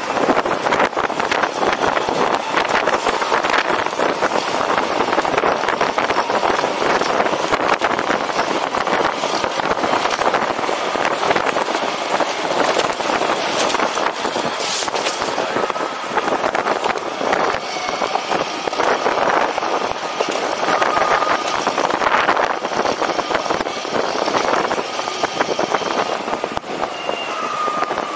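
Steady rushing road noise with rapid rattling from riding a personal electric vehicle along city streets. A few short high tones sound in the last third.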